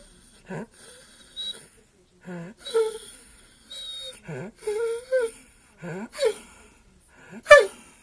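A lurcher 'talking': a run of about ten short vocal calls, each gliding up or down in pitch, the loudest near the end. The dog is pestering to be taken out for a walk.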